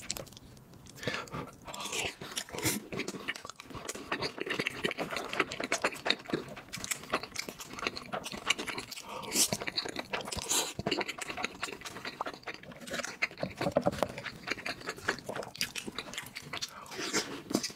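A person eating close to the microphone: biting, chewing and crunching food in quick, irregular clicks and crackles.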